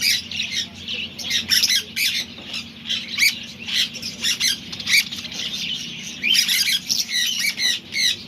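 Many caged parrots squawking and screeching at once, a dense, unbroken chorus of short, shrill calls over a steady low hum.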